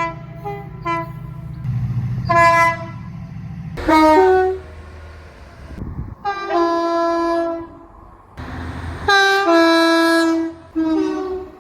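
Train horns sounding in a series of blasts, short and long, several of them two-tone, stepping from a higher note down to a lower one. A low rumble runs under the first four seconds.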